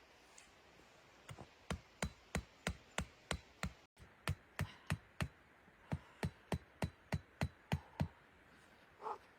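A rapid run of sharp knocks, like hammer strikes, about three a second, broken by a brief dropout about four seconds in. A short creak follows near the end.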